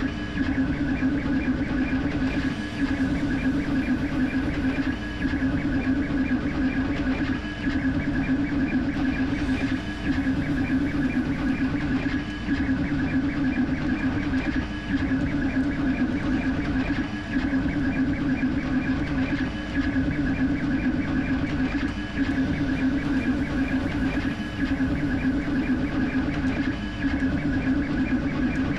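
Creality K1C CoreXY 3D printer printing at high speed: the motors whine as the print head sweeps back and forth, with the fans running. The sound is a steady hum and whine that briefly dips about every two and a half seconds.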